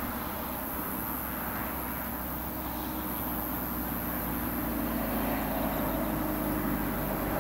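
A distant engine humming steadily and slowly growing louder as it approaches, with a low drone coming through more clearly in the second half.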